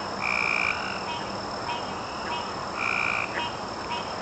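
A frog chorus: two loud, even half-second calls about two and a half seconds apart, with fainter short pulsing calls from other frogs between them, over a steady high-pitched drone.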